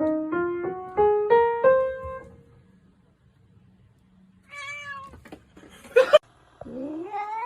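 A quick rising run of six musical notes, then a cat meowing twice: a short meow, a sharp knock, and a long meow that rises and then falls.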